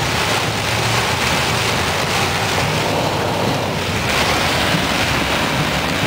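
Heavy rain hitting a car's roof and windshield, a loud, steady hiss heard from inside the moving car, mixed with road noise.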